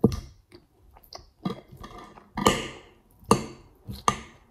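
Fork clinking and scraping against a glass food container, about five sharp clicks spaced roughly a second apart.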